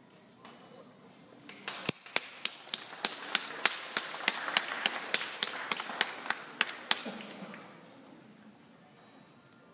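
Audience applauding, with one pair of hands close by clapping loud and steady about three to four times a second. The applause swells for about five seconds and then dies away.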